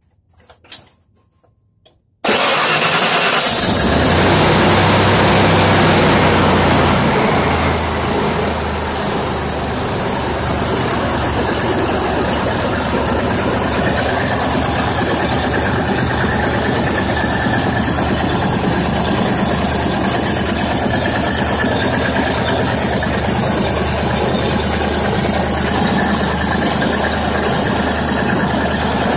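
1990 Ford F-150 engine starting about two seconds in, running fast and loud for a few seconds, then settling into a steady idle.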